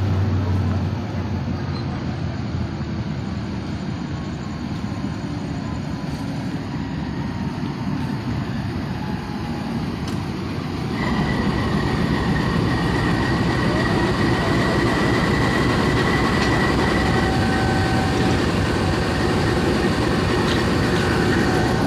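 Millat Express passenger train rolling past along the platform, a steady rumble of coaches on the rails. About 11 seconds in it grows louder and a high steady squeal joins in for several seconds.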